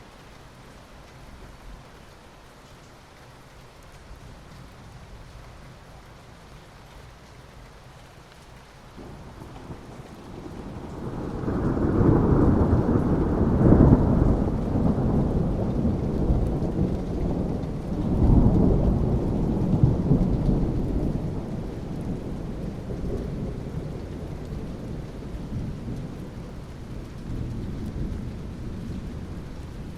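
Steady rain with a long roll of thunder that builds about a third of the way in, swells twice, and slowly dies away.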